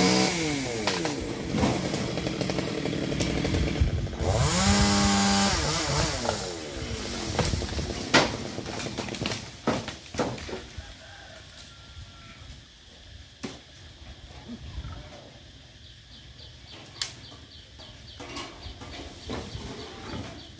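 Two-stroke chainsaw revved twice: a quick rise and fall at the start, then a second rev held high for about two seconds before it drops back. After that it goes much quieter, with a few sharp knocks.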